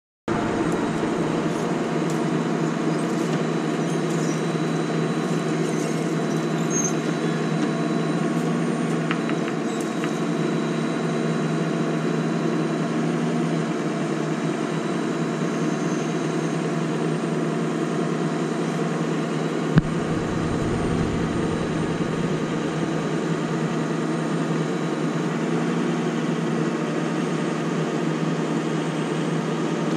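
Propane service truck's engine running steadily while its knuckle-boom crane hoists a propane tank, with one sharp click about twenty seconds in.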